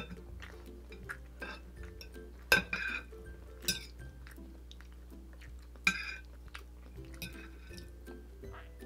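A metal spoon and fork clinking and scraping on a plate as food is cut and scooped, with a few sharp clinks, the loudest about two and a half, three and a half and six seconds in, over soft background music.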